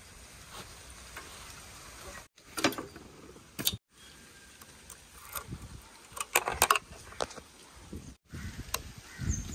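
Short clicks and jingles from a motorcycle's ignition key and keyring being fitted into the ignition switch and turned, with light handling noise between; the engine is not yet running.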